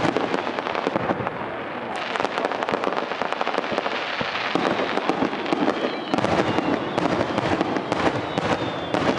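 Aerial fireworks crackling: a dense, continuous stream of small rapid pops and crackles overlapping one another, with a few thin whistles in the second half.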